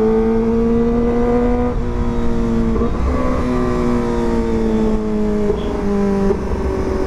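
Kawasaki ZX-25RR's 250 cc inline-four, with a Proliner aftermarket exhaust, run hard at high revs under throttle. The pitch climbs slowly and drops suddenly several times as gears are changed.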